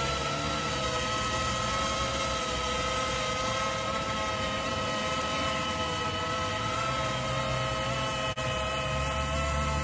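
Quadcopter's brushless motors and propellers whining at a steady pitch as it hovers low, hands-off, holding its altitude and position with the help of its lidar sensor.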